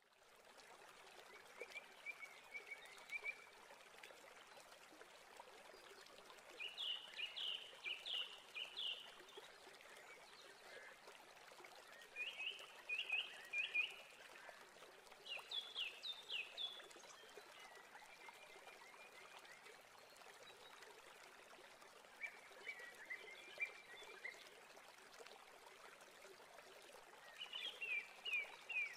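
Steady hiss like running water, with short runs of quick, high chirping calls recurring every few seconds.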